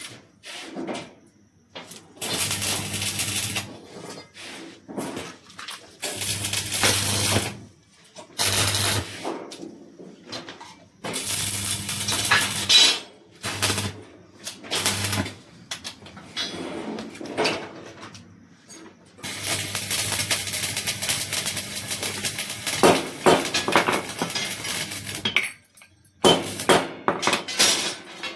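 Electric arc welding on a steel window grill in repeated short runs of a few seconds each, each a burst of crackling with the welder's low mains hum under it, and brief metallic clinks in the gaps between.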